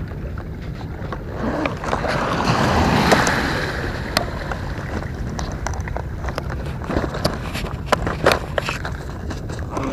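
Seawater washing up over concrete seawall steps, one wave swelling to a hiss about two to four seconds in. A few sharp clicks and knocks are scattered through the second half.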